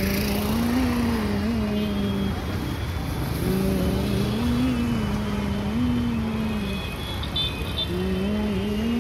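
Busy road traffic with motor-rickshaws and scooters passing, a steady wash of engine and tyre noise. Over it a held, wavering tone comes in phrases of a few seconds, with short breaks between them.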